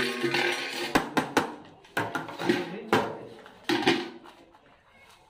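Perforated steel skimmer clanking and scraping against a large steel pan of chopped salad: a run of sharp metallic knocks with a short ring over about four seconds, fading away near the end.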